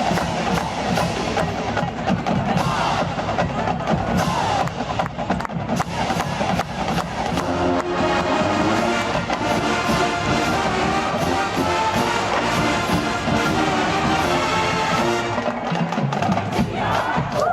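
College marching band playing: the drumline beats out a steady cadence, and the brass, sousaphones among them, comes in partway through with held chords. A crowd yells near the end.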